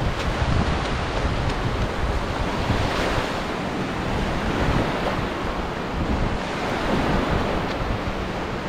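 Sea waves breaking and washing up on a beach in slow swells, with wind buffeting the microphone.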